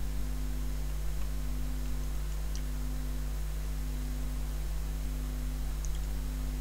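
Steady low electrical hum, with a second tone that pulses on and off about every second and a quarter, and a couple of faint light ticks.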